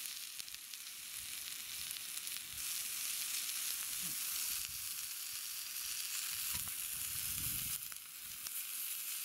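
Chicken-and-leek yakitori skewers sizzling on a hot ribbed grill pan: a steady frying hiss, louder from about three seconds in until near the end.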